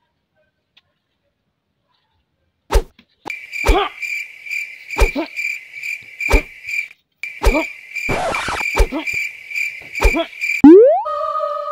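Dubbed-in kung fu fight sound effects: about seven sharp punch-like hits, each with a short falling swish, over a steady high pulsing chirp, with a hissing burst about eight seconds in. Near the end a quick rising swoosh leads into a held electronic tone.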